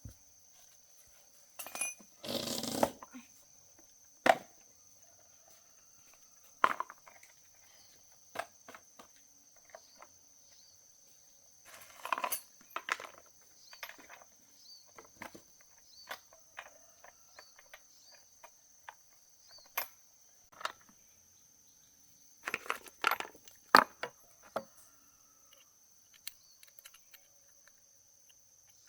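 Scattered clicks, knocks and clinks of hand work on small parts, with three short scraping or rustling bursts about 2, 12 and 23 seconds in, over a faint steady high-pitched whine.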